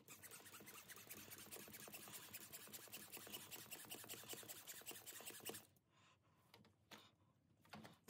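Faint trickling and crackling of kerosene being sucked through a tube into a hand-pumped vacuum extractor bottle, draining the lathe headstock; it stops about five and a half seconds in.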